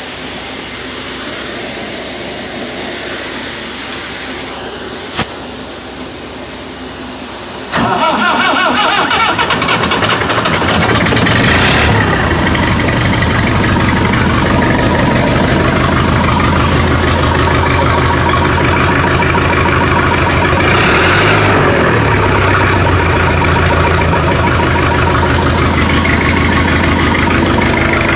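Rakovica 65 tractor's diesel engine being cold-started in sub-zero temperatures after standing for a month: a steady hiss for the first several seconds, then about eight seconds in the engine fires suddenly and settles into a steady, rapidly pulsing idle.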